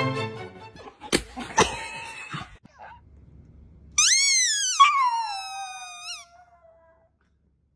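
A small Chihuahua-type dog howling: one long, high call starting about four seconds in that rises briefly and then slides down in pitch for about three seconds. Before it there are a couple of knocks and some rustling.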